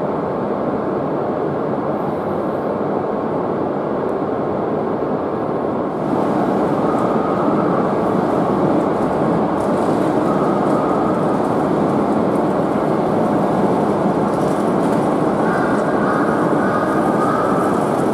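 Steady loud noise of a Shinkansen train on the platform, growing louder about six seconds in.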